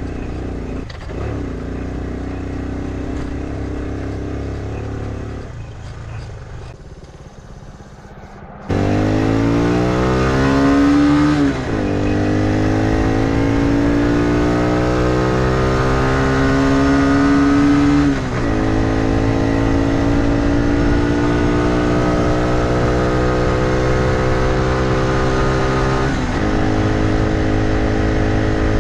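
Honda CT90's small single-cylinder four-stroke engine running under way. After a steady stretch and a brief quieter spell, it comes in loud, revs climbing and dropping back sharply at each gear change, twice, then holding a steady cruising note with one more small drop in pitch near the end.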